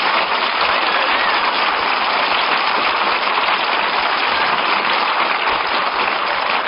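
Studio audience applauding steadily, a dense even clapping on a dull-sounding old broadcast recording.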